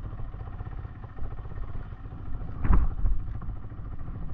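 Motorcycle running on the move, its engine mixed with a low wind rumble on the microphone, with a thump about two and a half seconds in.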